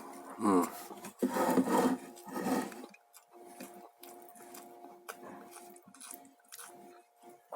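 A person chewing food close to the microphone, with soft wet clicks and smacks. In the first three seconds there is a short voice-like sound that bends in pitch, then louder noisy mouth or handling sounds. A faint steady hum runs underneath.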